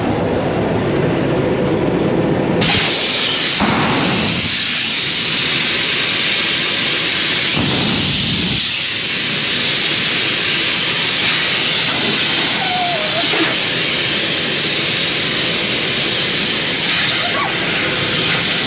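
Compressed air hissing steadily out of a heavy truck's air brake lines, starting suddenly about two and a half seconds in, over a low rumble.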